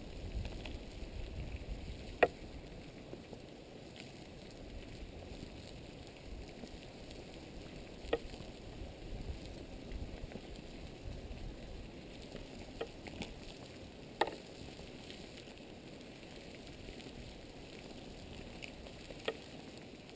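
Molten pahoehoe lava from Kīlauea oozing out of a crack in older lava, giving a steady, quiet sizzling crackle with about six sharp pops; the loudest pop comes about two seconds in.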